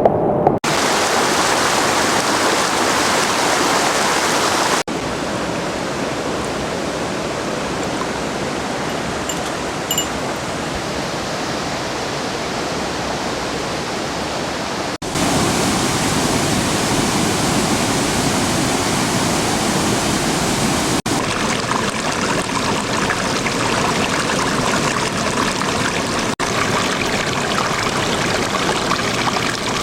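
Rushing river water, a steady roar of a stream running over rocks, changing abruptly in loudness and tone several times.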